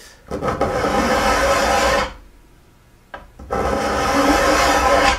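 Two long, slow strokes of a large flat file across a raker tooth of a 1940s carbon steel dado blade, each a metallic rasp lasting nearly two seconds, with a pause between. The strokes bring the raker down slightly below the level of the other teeth.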